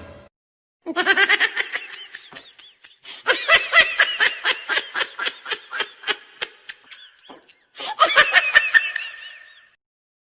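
Laughter sound effects: a short laugh, then a longer run of rapid, pulsing high-pitched laughter, then a final burst near the end, with brief silences between them.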